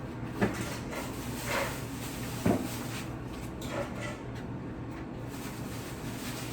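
Groceries being put away in a refrigerator: plastic packaging rustling and two sharp knocks as items are set down, the louder knock about two and a half seconds in.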